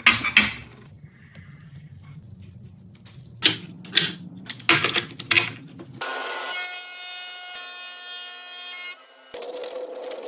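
Woodworking sounds: a series of sharp knocks and strokes on wood over the first six seconds. Then a steady machine whine with many fixed pitches for about three seconds, and after a brief drop, a motor running steadily.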